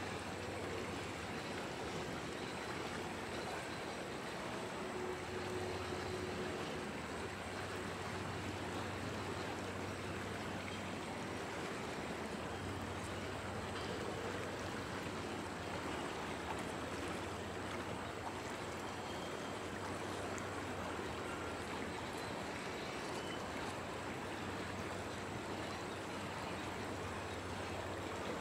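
Freight cars of a slow-moving mixed freight train rolling steadily past, a continuous even rolling noise of wheels on rail with no distinct clicks or knocks.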